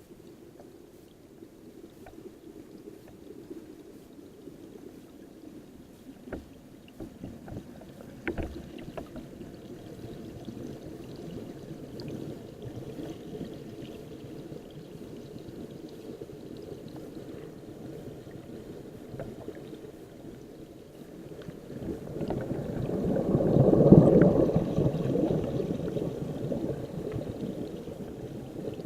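Muffled, steady rush of river water heard through an action camera's waterproof housing underwater, with a few faint knocks and a loud swell about three-quarters of the way through.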